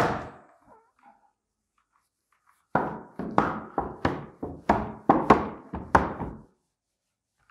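A thump right at the start, then, about three seconds in, a whiteboard eraser swiped across the board in about eight quick strokes, roughly two a second.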